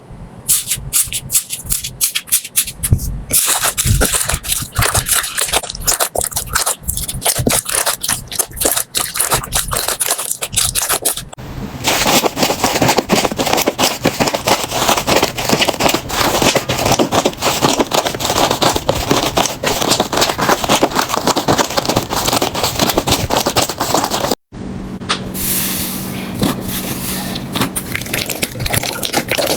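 Slime being squeezed and worked, giving dense crackling, clicking and popping as air pockets burst. The texture changes abruptly three times as one clip gives way to the next.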